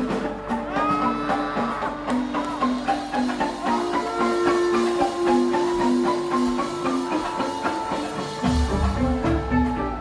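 Rock band playing live, heard through a phone's microphone: a repeating note figure runs over a held note, then bass and drums come in heavily about eight and a half seconds in.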